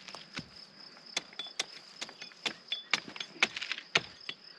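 Hatchet chopping at a wooden pole held upright, a sharp knock about every half second.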